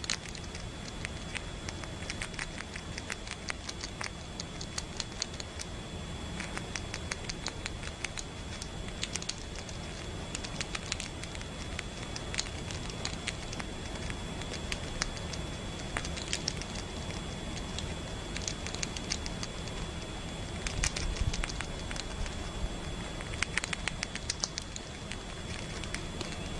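Irregular light clicks and crackles over a steady hiss, with a faint steady high whine, and a few busier flurries of clicks in the last third.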